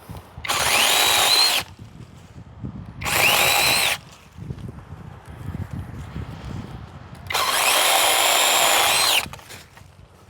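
DocSmart 8-inch brushless cordless chainsaw running in three short bursts, the second-to-last the longest. Each burst starts with a rising whine as the motor spins up and ends with a falling whine as it is let off.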